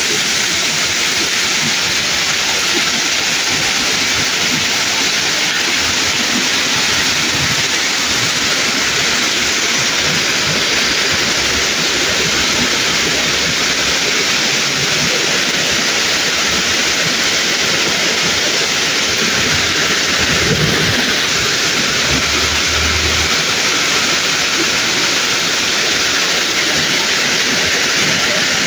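Torrential rain pouring steadily onto a paved road and standing floodwater, a loud, even hiss. A few brief low rumbles come midway.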